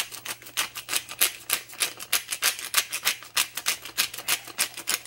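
Hand-held pepper mill grinding black pepper, its grinding mechanism making rapid, evenly spaced clicking.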